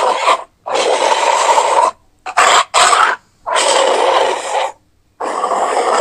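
Giraffe sound: a run of breathy, pitchless blasts, most about a second long with short gaps between them, and two shorter ones in the middle.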